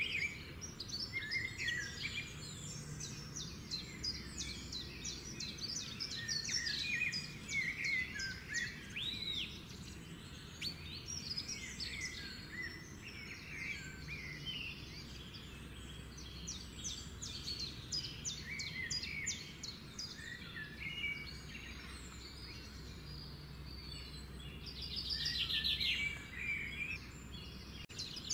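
Busy birdsong: many small birds chirping and trilling in quick, overlapping phrases, over a faint low hum.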